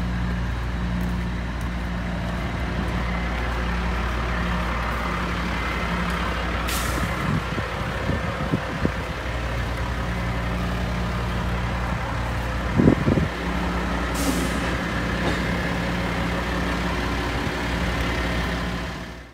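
Heavy diesel construction equipment and semi-trucks running steadily, with two short air-brake hisses about seven seconds apart and a few low clanks around the middle.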